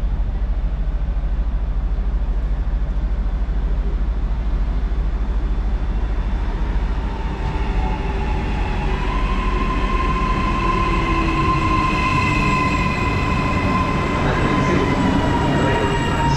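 Hitachi Rock double-deck electric train pulling into the platform. From about halfway in, a steady high whine rises over the running noise and sags slightly in pitch near the end as the train slows.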